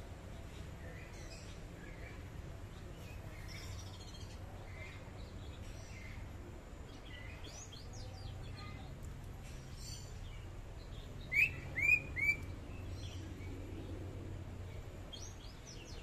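Caged green leafbird (cucak ijo) calling: scattered soft chirps and twitters, then three loud, quick whistled notes about eleven seconds in, over a low steady background rumble.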